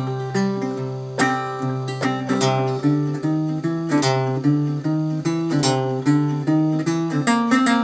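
1972 Stella Harmony 3/4-size acoustic guitar fingerpicked in a blues style: steady thumb-picked bass notes under a plucked treble melody, with a bright, dry tone and a natural ring that the player credits to its chrome tailpiece.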